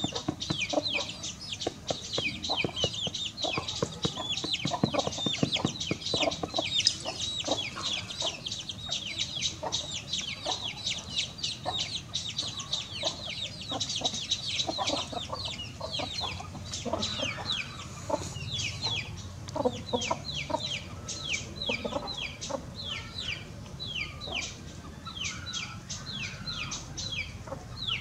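Small chicks peeping without pause, many short high notes that each fall in pitch, over a hen's low clucking.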